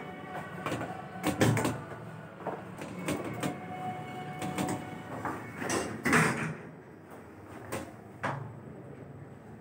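Schindler 5400 AP elevator's sliding doors closing, with a thud about six seconds in, among several sharp clicks and knocks from buttons and handling. Once the doors shut, the background noise goes duller and quieter.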